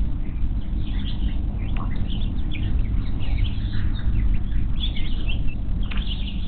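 Birds chirping: many short, high chirps over a steady low rumble on the nest-cam microphone.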